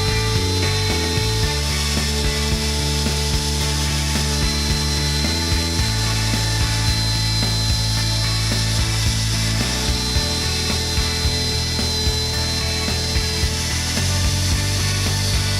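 Shaper Origin handheld CNC router cutting a trim-plate cutout into wooden baseboard, its spindle running steadily, under background music whose low notes change every few seconds.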